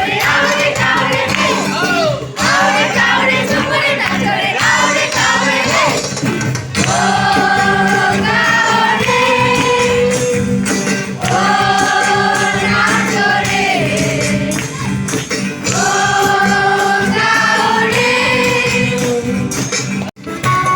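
A group singing a Christmas carol with tambourine and instrumental accompaniment, in held melodic phrases; the sound drops out suddenly for a moment just before the end.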